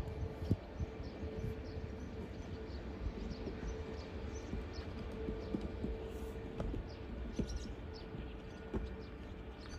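Distant jet airliner engines running with a steady hum, over a low, uneven rumble, with short high bird chirps all through.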